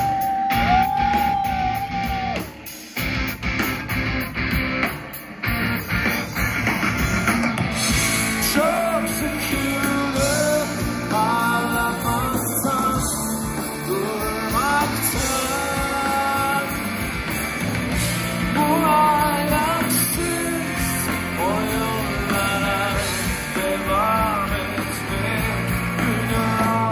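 Turkish rock band playing live with a singer, guitars and drums, heard from among the audience. The music drops out sharply twice in the first six seconds, then the sung melody carries on over the full band.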